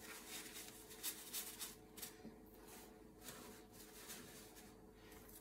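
Faint rustling and rubbing of a paper towel as spilled engine oil is wiped off the engine, in quick strokes that thin out after about two seconds.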